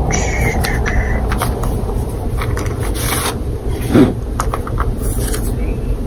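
A fabric dust bag rustling and scraping in the hands as a small key pouch is drawn out of it, in short scratchy handling noises over a steady low background rumble.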